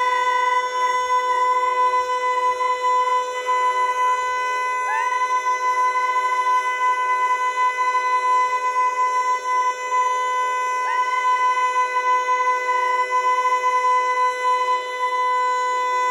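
Federal Signal Eclipse 8 outdoor warning siren sounding a steady, single-pitched alert tone with strong overtones during a test. About every six seconds the pitch briefly dips and comes back.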